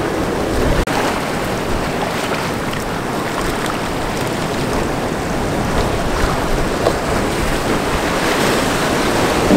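Ocean surf breaking and washing over rocks, a steady rushing wash.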